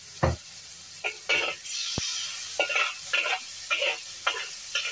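Sliced meat and sweet soy sauce sizzling in a hot wok. There is a sharp tap about two seconds in, and then a steel spatula scrapes and tosses the meat in regular strokes, about two a second, while the sizzle grows louder.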